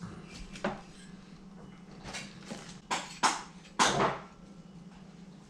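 Metal engine parts being handled and set down on a workbench during valve fitting on a cylinder head: a few sharp knocks and clinks, the loudest two about three and four seconds in, over a low steady hum.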